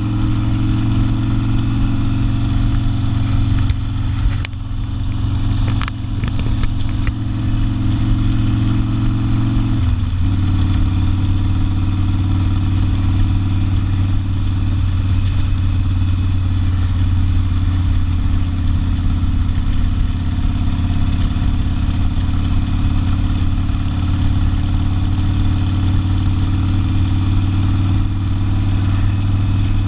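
Harley-Davidson Sportster V-twin with an open exhaust running under way at a steady pitch. The level dips briefly about four seconds in, with a few sharp clicks. About ten seconds in the pitch steps down, then holds steady.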